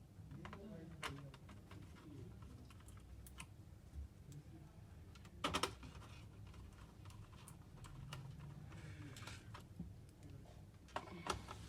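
Scattered small clicks and taps of hands working on an opened laptop's plastic and metal parts while connectors and parts are fitted, with a louder cluster of clicks about five and a half seconds in.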